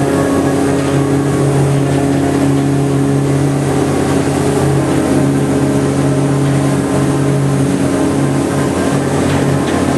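Ferry boat's engine running steadily under way, a constant low hum.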